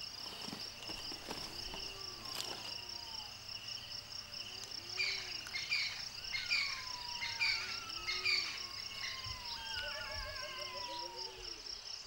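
Crickets or other insects chirring steadily, with bird calls over them: a run of short repeated notes in the middle, then several falling whistles, and low calls repeating every couple of seconds.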